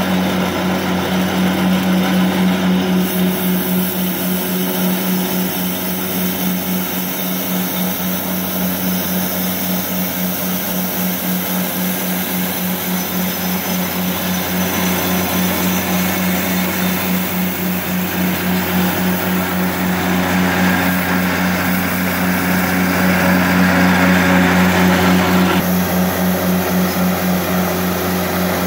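Walker MD mower's Kubota D722 three-cylinder diesel running steadily under load, driving a front-mounted rotary broom sweeping wet pavement. Under the steady pulsing drone of the engine runs a brushing hiss, which grows louder for a few seconds near the end and then cuts off.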